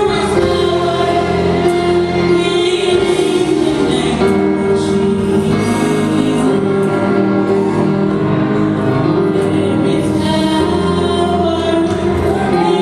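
A woman singing a gospel song into a microphone, with sustained musical accompaniment underneath.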